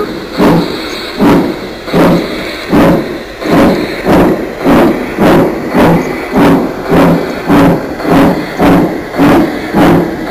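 Sampled steam-locomotive chuffing from the Massoth sound decoder of an LGB Mallet model locomotive, played through its built-in loudspeaker: a regular beat of hissing chuffs, somewhat under two a second, quickening slightly as the engine speeds up.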